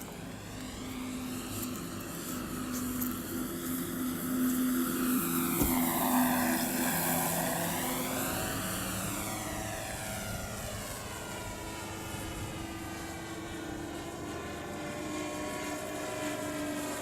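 Battery-powered radio-controlled P-51 Mustang warbird with an onboard engine-sound module flying past. Its simulated piston-engine drone and propeller noise swell as it passes closest, about six seconds in, then fade away.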